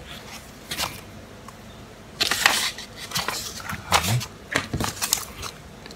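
Paper instruction booklet rustling and flapping as its pages are turned and handled, in several short bursts, the longest about two seconds in.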